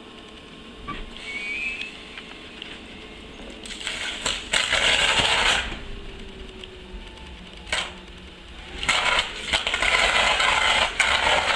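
Electric train's collector shoes arcing on an iced-up conductor rail as it pulls away: two loud bursts of crackling and sizzling, about four and nine seconds in, each two to three seconds long, with sharp snaps between them over the train's low running hum.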